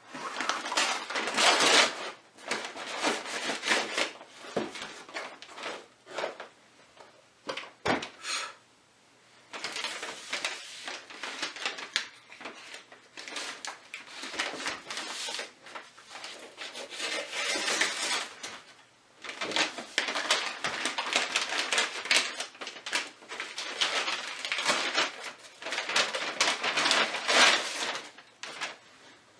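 Paper and plastic mailing envelopes being torn open and handled, crinkling and rustling in bursts with short pauses, with one sharp knock about eight seconds in.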